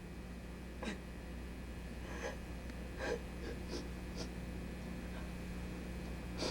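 A person breathing in a few short, faint gasps over a steady electrical hum.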